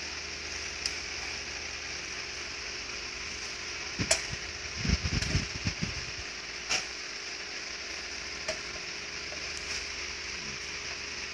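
Hands plugging wire connectors back into a Riso EZ stencil duplicator: a few sharp clicks, the strongest about four seconds in, and a short cluster of low thumps just after it, over a steady hiss.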